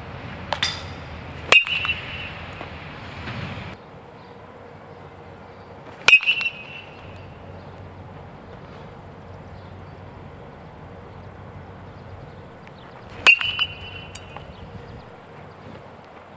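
Metal baseball bat hitting balls: three sharp, ringing pings, near the start, about six seconds in and about thirteen seconds in, with a fainter click just before the first.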